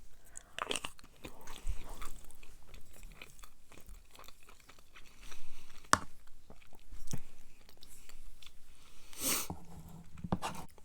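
A person chewing sloppy joe casserole close to the microphone, with scattered wet mouth clicks, a sharp click about six seconds in and a short hiss of breath about nine seconds in.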